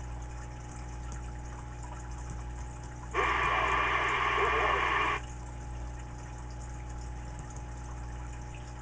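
RCI Ranger CB radio on receive, with a steady low electrical hum and, about three seconds in, a two-second burst of hiss-like static from its speaker that cuts off suddenly.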